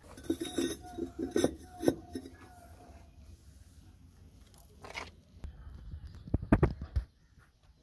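Fired clay bricks clinking and knocking against each other as a loose brick is set onto a brick shelf, a quick run of light knocks in the first two seconds. A few low thumps follow near the end.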